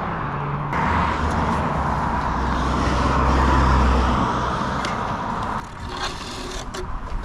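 Road vehicle going past, its low engine and tyre noise swelling to a peak midway and then fading.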